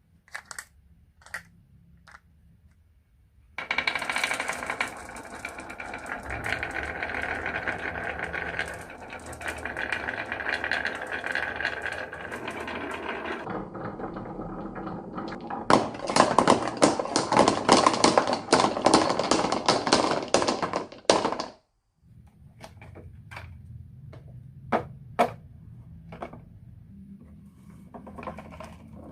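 Marbles rolling and clattering along a marble run: a few separate clicks, then a long dense rattle of many marbles, a louder rattle that cuts off suddenly past the middle, and scattered clicks and knocks near the end.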